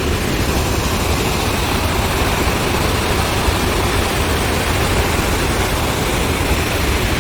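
Roar of the Rhine Falls heard up close: a loud, steady rush of falling water with a deep rumble underneath.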